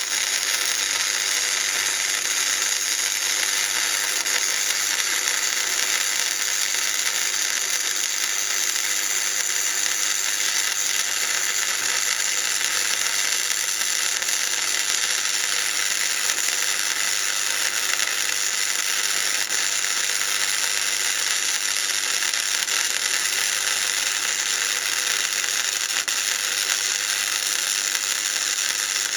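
Electric arc welding on a steel motorcycle rack: a steady, unbroken crackle from the arc as a long bead is run, with no pauses.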